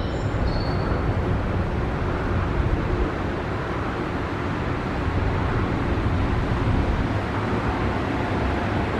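Tokyo Monorail train approaching through the tunnel into an underground station, a steady rumble with a heavy low end.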